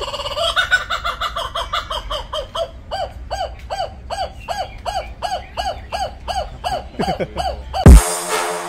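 Laughing kookaburra calling: a long run of repeated rising-and-falling notes, quicker at first, then steady at about two or three a second. Near the end it cuts off into a loud, deep falling boom as electronic music begins.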